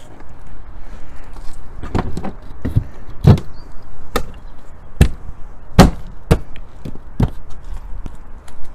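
A series of about nine sharp knocks at uneven intervals, one every half second to a second.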